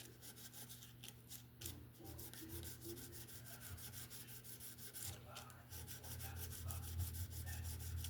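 Fine-grit sandpaper being rubbed by hand over a mandolin's frets and fretboard, a faint rubbing.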